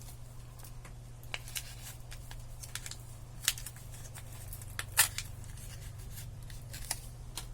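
Sachet of a glass-cleaning wipe being torn open and the wipe pulled out and unfolded: scattered crinkles and crackles, the sharpest about three and a half and five seconds in. A steady low hum runs underneath.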